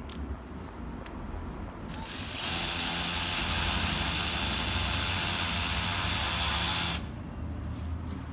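Makita HP458D cordless hammer driver-drill trigger-run: the motor spins up about two seconds in, runs steadily at full speed with a high whine for about five seconds, then stops abruptly.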